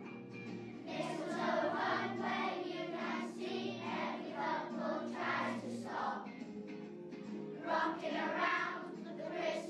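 A group of children singing a song together in unison over a steady musical accompaniment.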